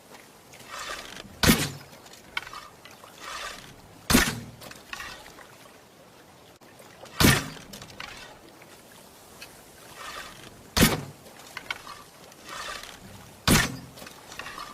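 Homemade tree-branch bow being shot five times, about three seconds apart: each shot a sharp snap of the string and arrow, most of them led in by a short, faint rustle.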